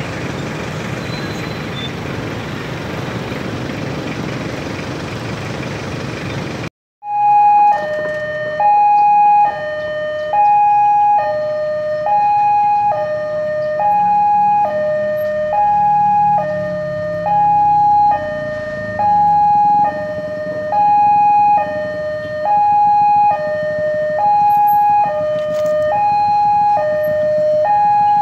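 A steady rumble, then, after a brief break about seven seconds in, a railway level-crossing warning alarm sounding a repeating two-tone high–low signal, each tone lasting under a second. The alarm warns that a train is approaching and the barrier is down.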